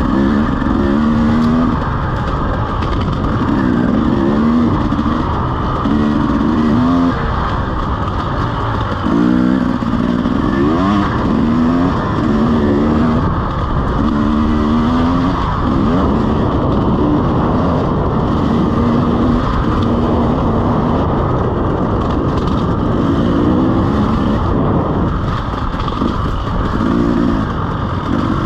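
KTM EXC 300's single-cylinder two-stroke engine being ridden hard, its note climbing and dropping back again and again as the throttle is opened and closed.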